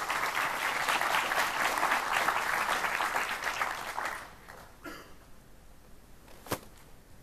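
Audience applauding for about four seconds, then dying away, followed by a single sharp click.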